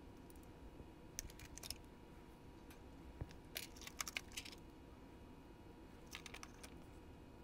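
Small clicks and taps of plastic and metal model-locomotive drive parts being handled and fitted together by hand, in three short flurries.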